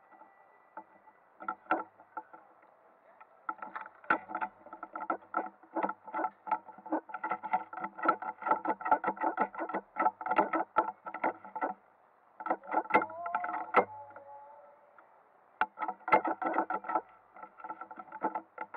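Music: a rhythmic, strummed electric guitar with effects, with two short breaks partway through.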